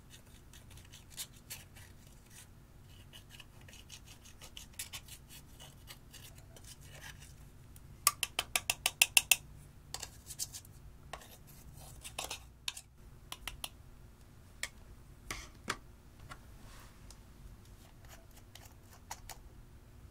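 A thin metal tool scraping and chipping pressed powder blush out of a plastic makeup compact, scratching with scattered sharp ticks. About eight seconds in comes a quick run of about ten sharp taps, the loudest part, before the scraping goes on more sparsely.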